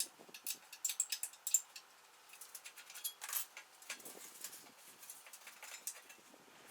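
Small metal tools and parts clinking and rattling while being handled, a quick run of sharp clicks in the first couple of seconds, then scattered lighter ticks and rustling.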